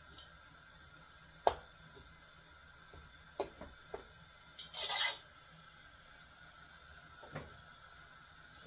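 Sparse kitchen clatter: a few light clicks and knocks of pots and utensils, with a short scraping rustle about five seconds in.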